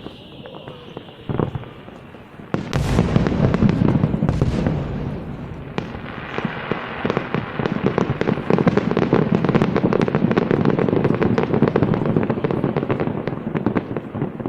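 Fireworks going off: a loud boom nearly three seconds in and another about a second and a half later, then from about six seconds a dense, continuous crackle of many rapid bangs.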